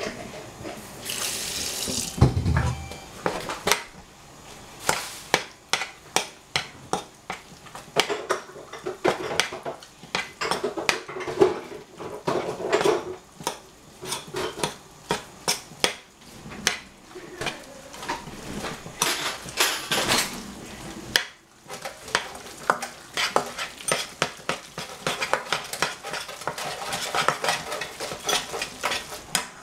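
A metal spoon mixing raw ground meat in a small stainless-steel saucepan, clicking and scraping against the sides of the pan in quick, irregular strokes, with the pan resting in a steel sink. There is a louder knock with a low thud about two seconds in.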